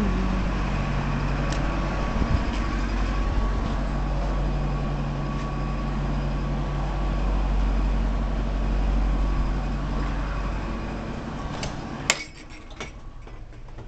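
Steady low mechanical rumble with a faint hum. About twelve seconds in, a sharp clack cuts it off, and what remains is much quieter, with scattered faint clinks.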